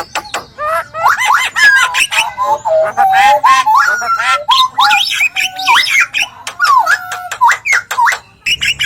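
Songbirds singing a continuous, varied medley of clear whistles, slurred up-and-down glides and quick chattering notes, the kind of song compilation played in masteran to tutor caged songbirds.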